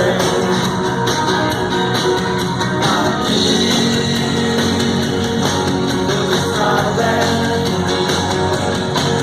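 A live band playing a rock song, with strummed guitar and a singing voice.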